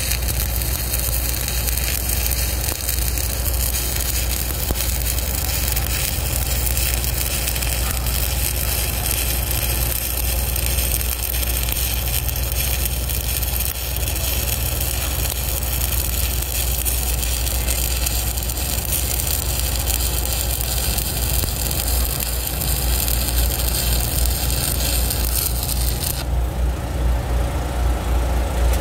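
Stick (shielded metal arc) welding with a 1/8-inch 7018 Lincoln Excalibur electrode at about 126 amps: the arc crackles and sizzles steadily as a fillet bead is run along a steel angle clip. The arc goes out a couple of seconds before the end.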